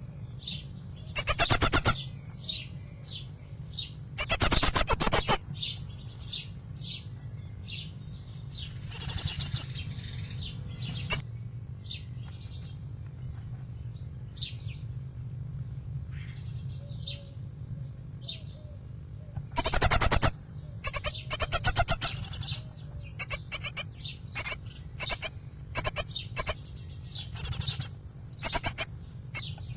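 Young great tit calling at a nest-box entrance: a run of short, high chirps, broken by several louder, rasping calls of about a second each, one early, one a few seconds in, and two near two-thirds of the way through. A steady low hum runs underneath.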